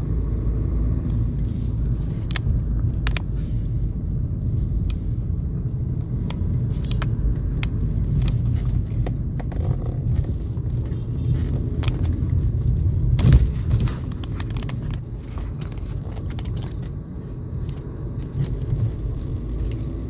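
Road and engine noise inside a moving car's cabin: a steady low rumble, with scattered light clicks and rattles, the loudest about two-thirds of the way through.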